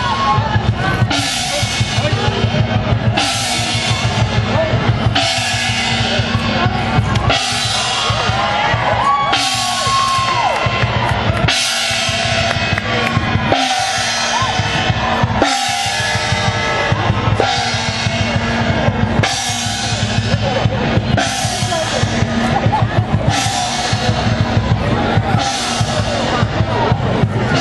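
Chinese parade percussion: a drum beating steadily, with a cymbal and gong crash about every two seconds.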